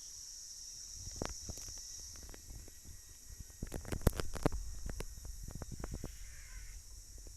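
Irregular clicks and knocks, densest and loudest about four seconds in, over a steady high drone of forest insects.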